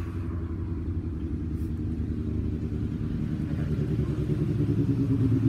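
A motor running with a steady low hum that grows slightly louder toward the end.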